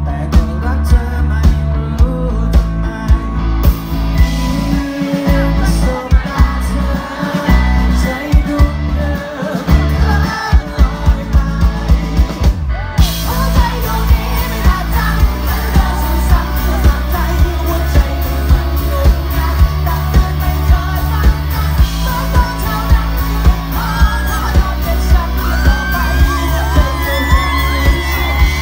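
Live rock band playing over a PA: a male lead singer over electric guitar, bass guitar, keyboards and a steady drum beat. The band cuts out for a moment about halfway through, then comes back in.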